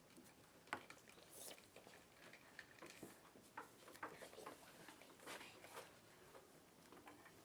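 Near silence with faint, scattered small clicks and rustles, irregularly spaced.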